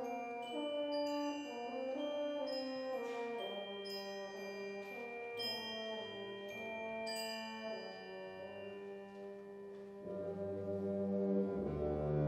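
Concert band playing: held brass chords that move every second or so, with struck mallet-percussion notes ringing above them. It eases off past the middle, then the low brass come in louder near the end.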